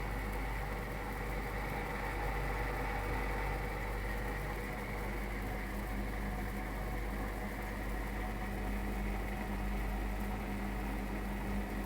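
BAXI Main 5 14F gas boiler running with a steady hum and constant tones; no knocks stand out.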